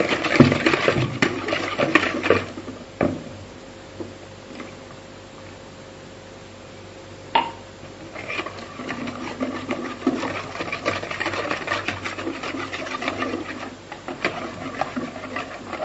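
Wire balloon whisk beating a runny egg batter in a plastic bowl: fast rattling clicks of the wires against the bowl with liquid sloshing. The beating stops for a few seconds in the middle, with a single knock, then starts again.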